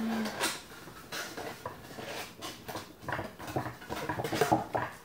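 Cardboard box being handled and folded inside out: irregular rustling, scraping and light knocks of cardboard and paper, loudest about four and a half seconds in.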